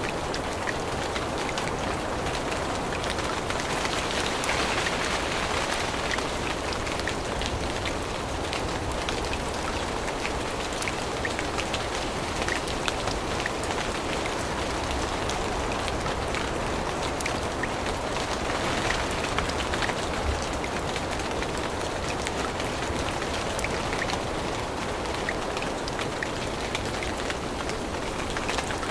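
Steady rain falling, an even hiss with many separate drop ticks scattered through it.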